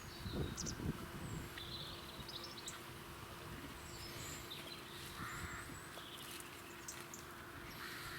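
Outdoor rural ambience: scattered short bird chirps and calls over a faint steady hum, with some low rumbling in the first second.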